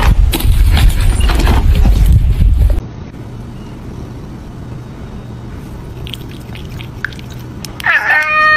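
A cat meows once near the end, one long call. Before that, a loud low rumbling noise with scattered knocks runs for about the first three seconds and cuts off.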